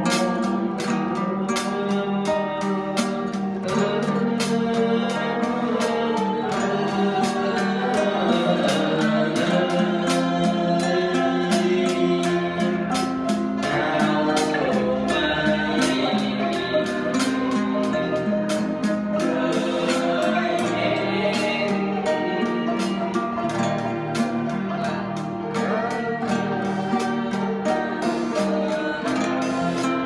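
A man singing into a microphone over an ensemble of plucked and hammered zithers playing a steady stream of quick notes.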